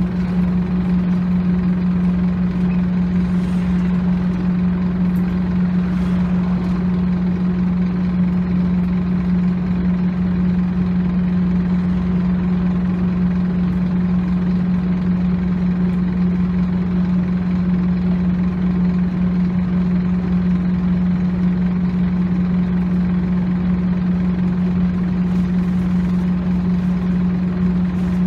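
Scania OmniCity bus's diesel engine running steadily, heard from inside the passenger saloon: a constant low hum that holds one pitch throughout.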